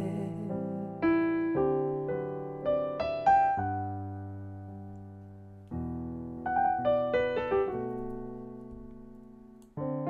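Digital piano playing a slow jazz ballad interlude with no singing: a few chords struck and left to ring and fade, then a second group of chords about halfway through.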